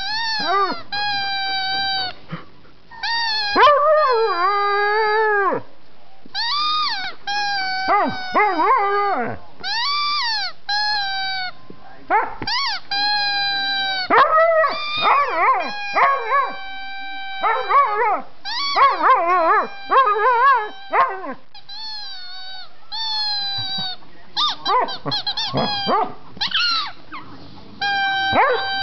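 Siberian husky howling at his squeaky toy: a long string of howls and yowls that glide up and down in pitch, one after another with short breaks.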